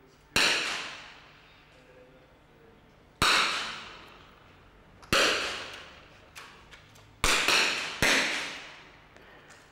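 Five .22 smallbore target rifle shots, each a sharp crack followed by about a second of echo; the last two come less than a second apart.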